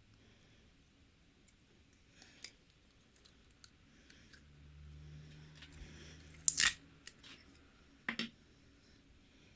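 Slime being handled, with scattered soft sticky clicks, a loud crackling squelch about six and a half seconds in and a shorter one about eight seconds in.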